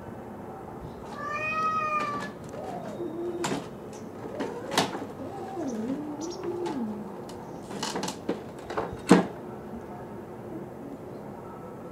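Feral cats calling: a high meow about a second in, then a lower, wavering drawn-out cat call. A few sharp knocks come in between, the loudest about nine seconds in.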